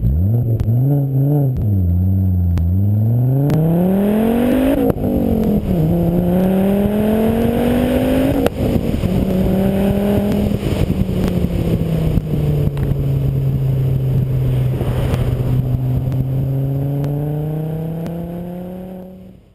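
Volvo S60R's turbocharged five-cylinder engine heard through a stainless oval-tube catback exhaust while driving. The note dips, then climbs with drops at gear changes about five and eight and a half seconds in, then settles lower and slowly rises again before fading out.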